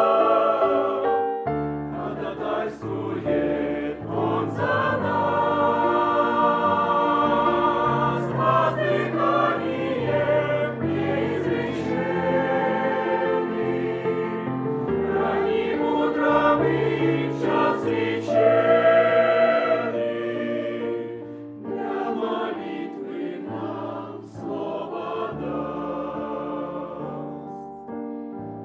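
Choir singing a Russian church song in sustained chords, phrase after phrase, with low bass notes held beneath. It grows softer in the last third.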